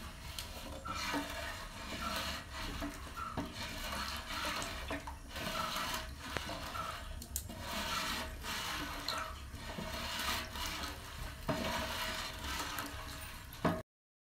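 Long wooden paddle stirring coconut milk and melted jaggery in a large metal pot, with rhythmic scraping and sloshing strokes and a few sharp knocks.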